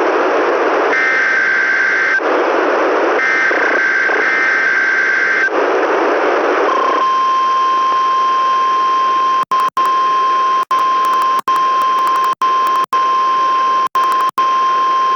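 NOAA Weather Radio emergency test over radio hiss. First come two harsh data bursts of the SAME alert header, each a second or two long with short pauses between them. Then, about seven seconds in, the single steady weather radio warning alarm tone starts and holds to the end, broken by several brief dropouts.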